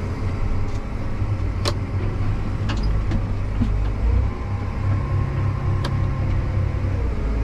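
Tractor engine running steadily under way, its low drone shifting in note about halfway through, with a few sharp clicks.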